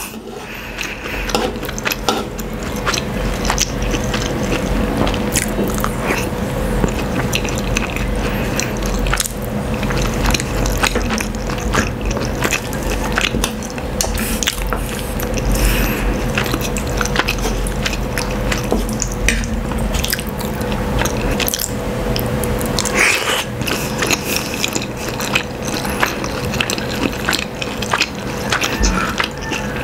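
Close-miked eating sounds: chewing and biting on sardines in tomato sauce with rice, with frequent clicks and taps of a wooden spoon and fork against a wooden board. A steady hum runs underneath and stops about three-quarters of the way through.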